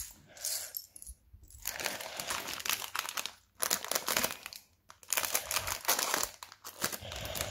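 Small plastic LEGO bricks clattering and rattling as a bag of pieces spills out, with crinkling of the plastic bag. The clicks are irregular, with a few short pauses.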